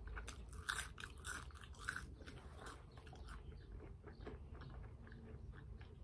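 A person chewing food close to the microphone: a quick run of soft crunches and wet mouth clicks, busiest in the first three seconds and fainter after.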